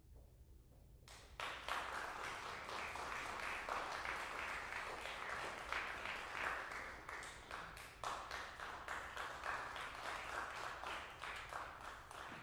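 Audience applauding, starting suddenly about a second in and continuing as dense, steady clapping.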